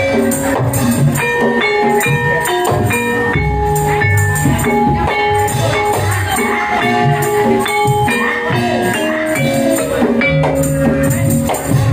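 Instrumental music for a Gajah-gajahan troupe: a melody of held notes stepping up and down over a steady drum beat, with tambourine jingles.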